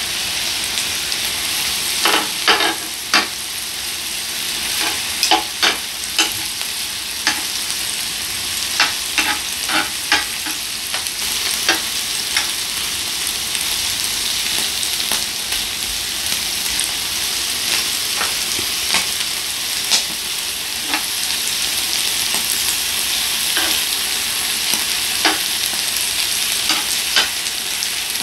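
Beef intestines and heart sizzling steadily on a tabletop grill pan, with irregular sharp clicks as metal tongs turn the pieces.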